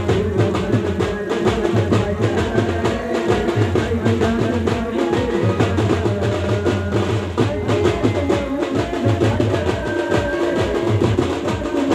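Live band music through a PA: a steady drum pattern struck with sticks on an electronic percussion pad, over sustained keyboard tones.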